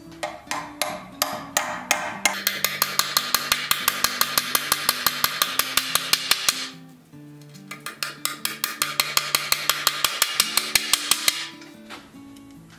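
Small hammer tapping quickly and evenly on small nails being driven into the wooden felloe of a buggy wheel: two long runs of rapid light taps, with a pause of about a second between them. Acoustic guitar background music plays underneath.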